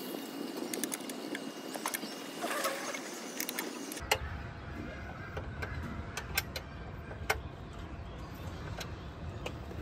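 Small metallic clicks and taps of a hex key working bolts on a steel luggage mounting bracket, coming irregularly a few times a second. A low steady rumble joins about four seconds in.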